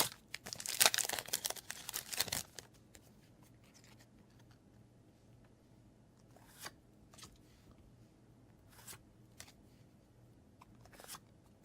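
A foil Yu-Gi-Oh booster pack wrapper being torn open and crinkling for about two and a half seconds, followed by a few faint clicks of the cards being handled.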